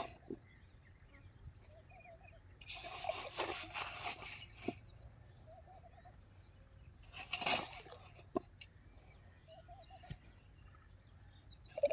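Quiet outdoor ambience with faint, repeated bird calls and two short noisy bursts, one about three seconds in and one about seven seconds in.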